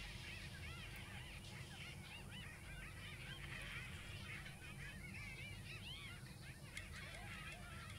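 A dense chorus of many animals calling at once: a steady mass of short, high, rising-and-falling cries that overlap.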